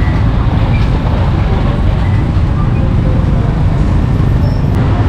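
Steady low rumble of street traffic, with faint crowd chatter in the background.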